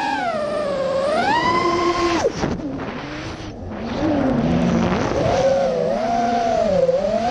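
Racing quadcopter's Lumineer 2206 2350 kV brushless motors spinning HQ 5x4.5x3 tri-blade props, whining with a pitch that rises and falls with the throttle. It is held high, then chopped a little over two seconds in, and pushed back up from about four seconds: hard on-and-off throttle punches.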